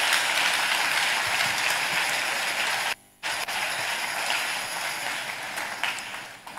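Large audience applauding, a dense steady clapping that cuts out for a moment about three seconds in, then tapers off near the end.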